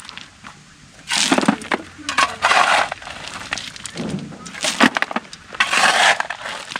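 Shovels scraping and crunching into loose ballast, four or five separate strokes each about a second long, with voices in between.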